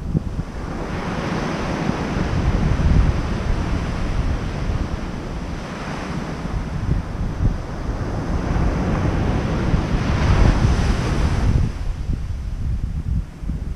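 Ocean surf breaking and washing up a sandy beach, rising and falling in three swells, the last the loudest. Wind buffets the microphone with a low rumble.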